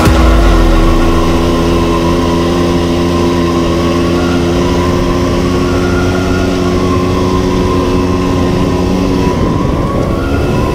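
ATV engine running at a steady throttle while the quad rides across sand dunes; the steady engine note fades near the end.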